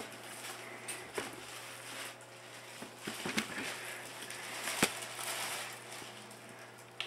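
Clear plastic wrapping around a flower bouquet crinkling and rustling as it is handled, with a few sharp clicks and taps, the loudest nearly five seconds in.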